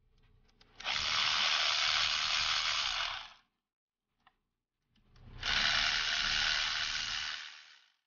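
Power ratchet running in two spells of about two and a half seconds each, working fasteners on the engine's fuel rail and injector area, with a few light clicks before the first spell and one between them.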